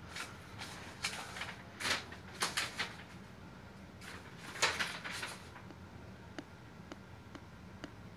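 Paper instruction sheet rustling in a series of short crinkles as it is unfolded and handled, followed by a few faint ticks.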